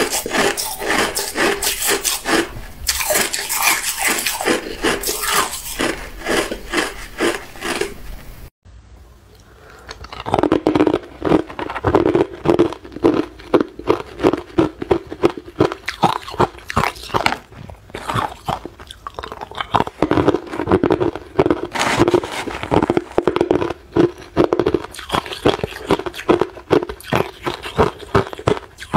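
Hard clear ice being chewed close to the microphone, a rapid run of loud, sharp crunches. The crunching breaks off abruptly about a third of the way in, then starts again after a second or so.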